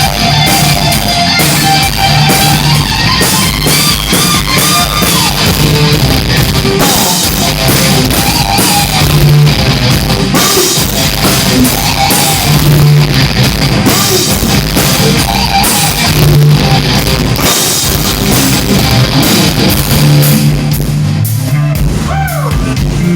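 Loud rock music with a drum kit and guitar.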